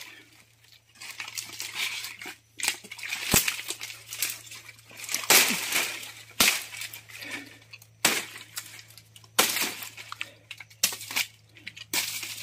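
Machete chopping through undergrowth and palm stems, a sharp chop every second or two, with dry leaves and twigs crackling and rustling between the strokes.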